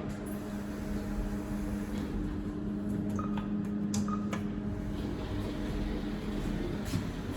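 Kone MonoSpace traction lift with an EcoDisc machine running, a steady low hum with scattered knocks and two brief high beeps near the middle; the noise is put down to bad bearings.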